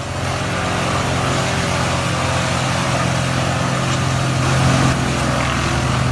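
Heavy wood-processing machine's engine running steadily at high power, a constant low drone with a broad hiss of noise above it.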